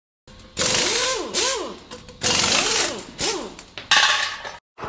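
Intro sound effects for a logo card: a series of harsh, noisy bursts with quick tones that sweep up and then down, and a sharp hit near the end before it cuts off.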